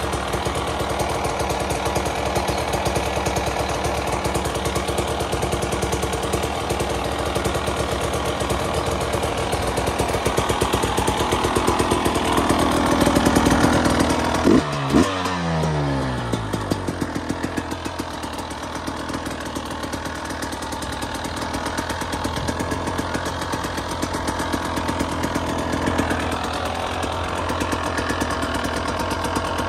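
KTM 300 EXC's single-cylinder two-stroke engine idling as it warms up after a cold start. About halfway through the revs climb, two quick throttle blips follow, then the revs fall back to a lower, steady idle.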